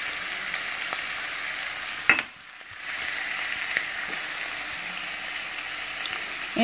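Ground beef, potatoes, carrots and peas sizzling steadily in a stainless steel skillet. About two seconds in there is a sharp click, and the sizzle drops away for about half a second before carrying on.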